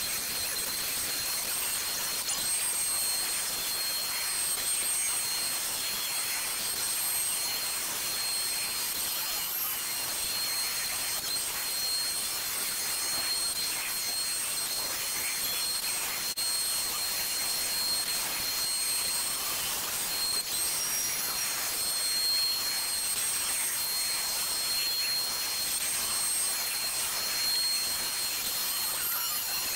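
CNC machine's router spindle running steadily with a constant high whine, its bit cutting through 3/4-inch plywood with a continuous hiss.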